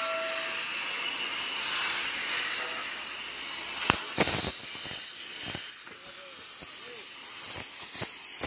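Oxy-acetylene cutting torch hissing steadily as it cuts into a steel excavator track chain, with a few short metallic knocks in the second half.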